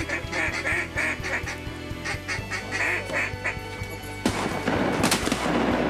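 Mallard quacking, a run of short repeated quacks, over background music with a steady beat. About four seconds in, a rushing hiss comes in.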